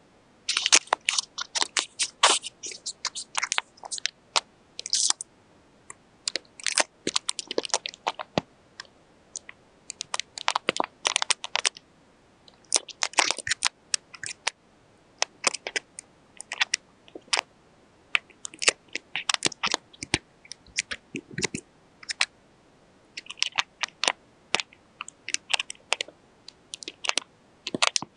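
Paper and tape being handled, crinkling and crackling in irregular clusters of sharp clicks with short pauses between.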